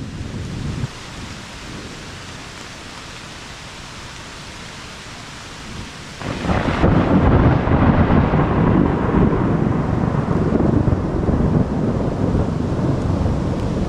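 Thunderstorm in woodland. A roll of thunder dies away within the first second, leaving the steady hiss of rain. About six seconds in, another loud roll of thunder breaks and keeps rumbling over the rain.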